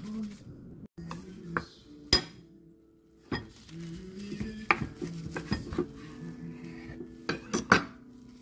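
Kitchen knife cutting plastic-wrapped kimbap on a wooden cutting board: a series of sharp knocks and clicks as the blade and the food meet the board. The loudest knocks come in a quick cluster near the end.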